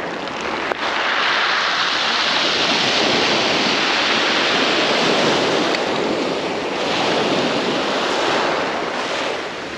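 Waves breaking and washing up a pebble beach: a steady rush of surf that swells and eases.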